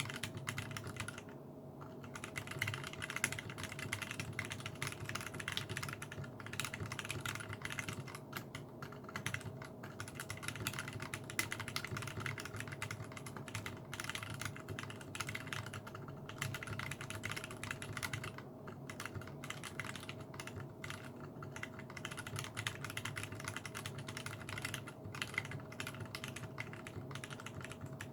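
Steady, fast typing on a mechanical keyboard fitted with Zealios 62g tactile switches and Zeal stabilizers: a dense run of keystroke clacks with a few brief pauses.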